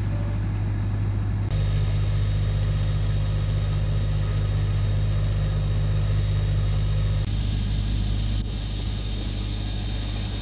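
Enclosed engine-driven flood pump set running steadily: a loud, constant low drone. The drone steps up abruptly about a second and a half in and drops back after about seven seconds.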